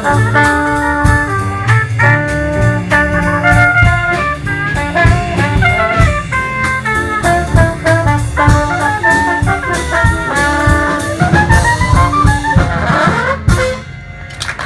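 Traditional New Orleans jazz: brass horns playing over a drum kit with a steady beat, the tune winding down near the end.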